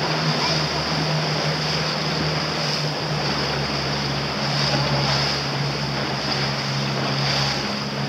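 Wind buffeting the microphone and water rushing and splashing past a moving boat, over a steady low engine hum.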